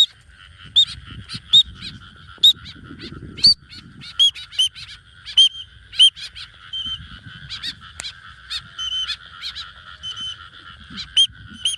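White-breasted woodswallow calling: a rapid series of short, sharp notes, roughly two a second, over a steady high hum in the background.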